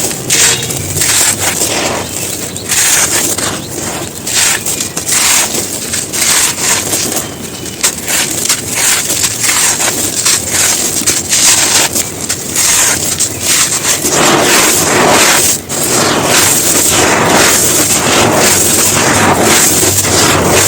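Brittle dried chunks being crumbled and crushed by hand, a dense irregular crunching and crackling that becomes steadier and fuller about two-thirds of the way through.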